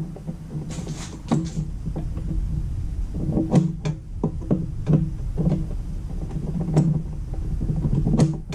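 A plug is worked into a power strip, making repeated plastic clicks and knocks over a low electrical hum. The hum swells at the clicks as contact is made, a sign of the dead Harbor Freight 2/10/50 battery charger taking power again. It stops suddenly at the end.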